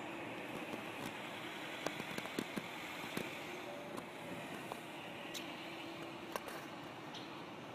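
Steady background hiss with scattered light clicks and ticks.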